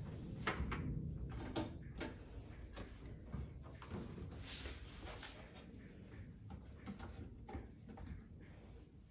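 Handling noise from work on a washing machine's rubber door seal: scattered light clicks and knocks, a heavier low rumble in the first two seconds, and a scraping rub about four and a half seconds in.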